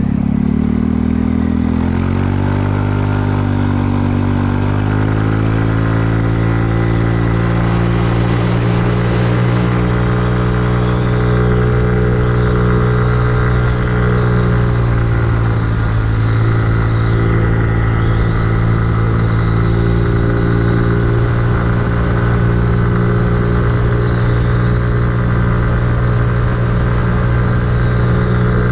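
Kymco People 250 scooter's single-cylinder engine and exhaust pulling up to speed over the first several seconds, then cruising at a steady pitch, easing off briefly about halfway through. The exhaust leaks are freshly plugged with high-heat JB Weld epoxy.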